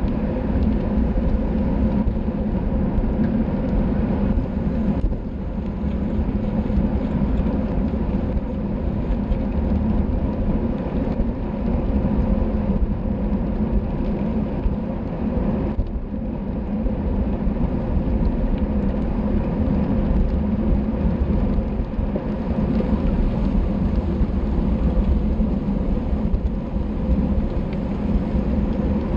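Steady wind rush on the microphone of a camera riding along in a road bicycle race, heaviest in the low end, with tyre and road noise underneath.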